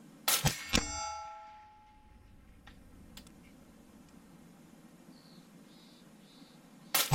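Two shots from a suppressed 6mm ARC rifle, one about a third of a second in and one right at the end, each a sharp crack with a couple of quick further hits, followed by a ringing metallic clang of the steel target that fades over about a second.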